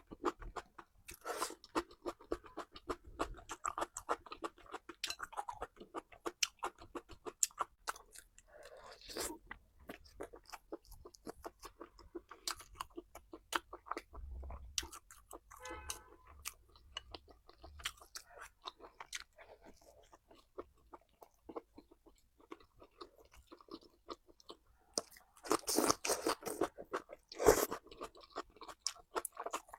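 A person eating: chewing, with many small irregular mouth clicks and smacks, and a louder stretch of bites and chewing near the end.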